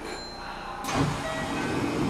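Inside a Kintetsu 5800-series commuter car, a sudden rush of air and mechanical noise starts about a second in as the sliding doors begin to open. Short electronic tones sound twice over it.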